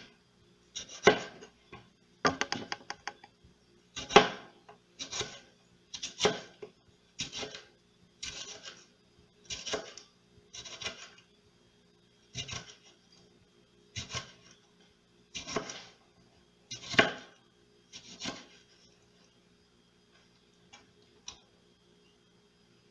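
Kitchen knife slicing a tomato into rounds on a plastic cutting board: a short cut through the fruit and onto the board roughly once a second.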